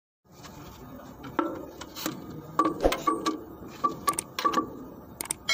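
Socket wrench on a long steel extension bar being worked on a truck's torque rod bolt: a dozen or so sharp, irregular metal clicks and clinks with a short ring, some in quick pairs.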